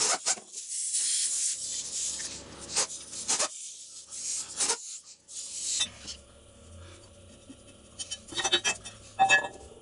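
Aerosol can of PB Blaster penetrating oil spraying onto a rusted front axle in several hissing bursts, the first about two seconds long and the rest shorter. A few clicks and light knocks come near the end.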